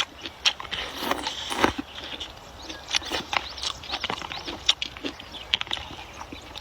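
Close-up eating sounds: irregular wet clicks and smacks of chewing, with small high chirps in the background that sound like birds.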